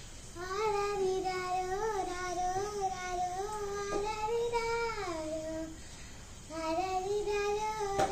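A young girl singing a song unaccompanied, in long held phrases, with a pause of about a second just past the middle before she sings on.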